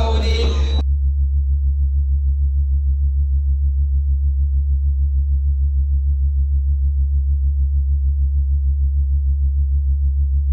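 A loud, low electronic drone, a steady deep tone with a fast, even pulse. It takes over abruptly under a second in, as a voice cuts off.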